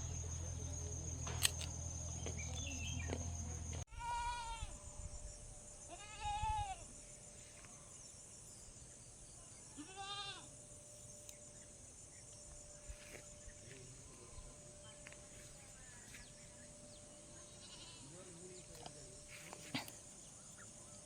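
Goat bleating: three short, high, wavering calls in the first half, then fainter sounds. A low steady hum at the start cuts off abruptly just before the first call.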